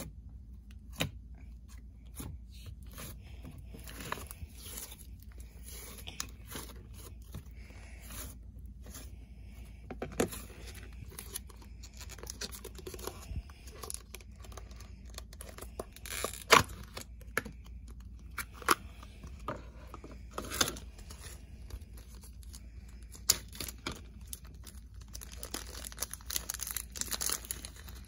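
Orange slime squeezed and kneaded by hand, with scattered sharp clicks and pops. In the last few seconds a small plastic bag crinkles as it is handled.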